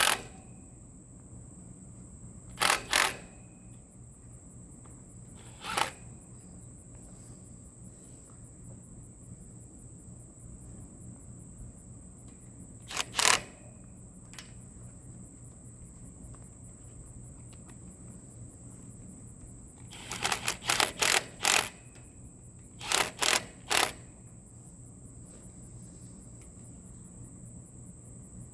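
Crickets trilling steadily and high-pitched, with scattered sharp clicks and knocks, singly and in quick runs of three to five, the densest run about twenty seconds in.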